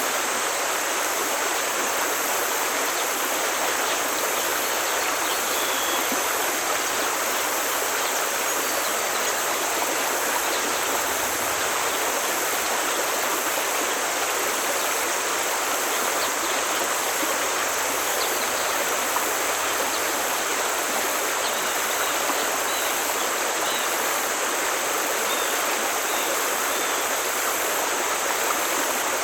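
Forest stream flowing and splashing steadily over rocks, an even rushing of water.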